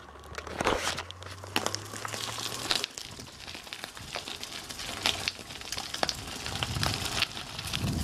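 Bicycle tyres crunching and crackling over a gravel path while riding, with frequent short clicks and rattles from the bike.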